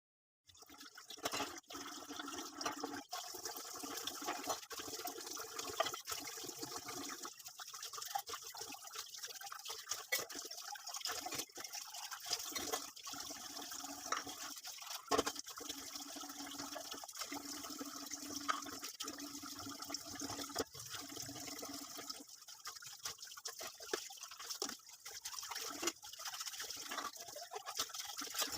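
Water running steadily from a kitchen tap, with many short knocks and clatters throughout.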